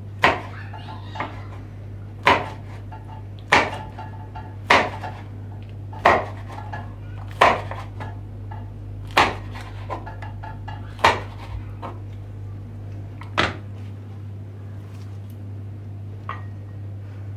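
Kitchen knife chopping a red pepper on a wooden cutting board: sharp knocks of the blade hitting the board, about one every second and a quarter, stopping about three-quarters of the way through. A steady low hum runs underneath.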